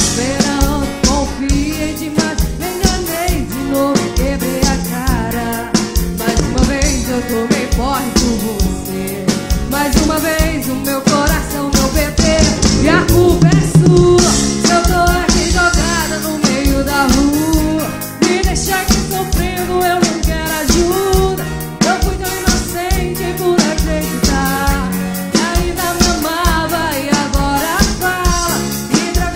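Live band playing an upbeat number: drum kit keeping a steady beat under electric guitar and horns (saxophone and trombone), with a melody line on top.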